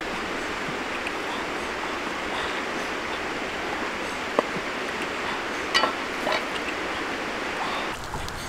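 Steady rush of flowing river water, with a few light clicks and knocks about halfway through.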